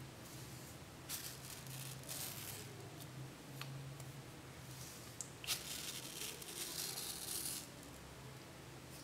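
Serrated knife blade slicing through mango skin and flesh: two short rasping cuts, then a longer one past halfway, over a low steady hum.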